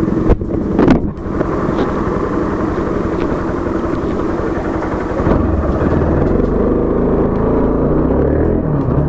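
Motorcycle engine running on the move, heard through a microphone inside the rider's helmet, with two short knocks within the first second and a change in the low rumble about five seconds in.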